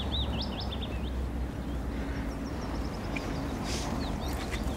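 Outdoor ambience: a small bird chirping a quick run of short falling notes at the start, with fainter chirps later, over a steady low rumble.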